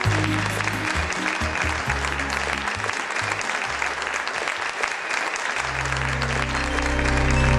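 Applause over background music with a bass line. About two-thirds of the way through, a low sustained tone swells in and grows louder as the next piece of music begins.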